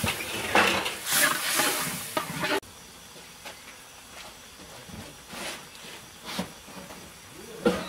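Crab chili paste frying in a steel wok: a metal spoon scrapes and stirs it with repeated strokes over the sizzle. After about two and a half seconds the sound drops suddenly to a quieter, steady sizzling and bubbling of the simmering paste.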